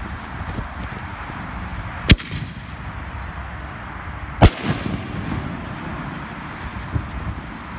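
Consumer aerial firework shell going off: two sharp, loud bangs about two and a half seconds apart, each with an echoing tail, then a smaller bang near the end.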